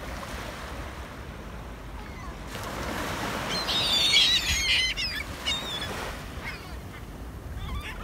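Gulls calling, a burst of squawks about halfway through and a few more calls near the end, over the wash of small waves breaking on the sand.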